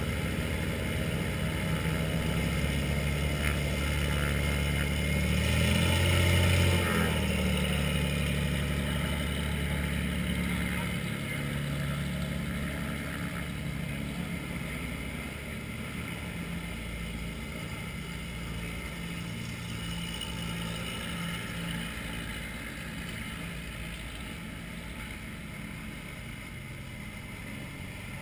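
Light propeller aircraft engine running at low power as the plane taxis past. It is loudest about six seconds in, where the pitch drops as it goes by, then fades as it moves away while more planes come up the street.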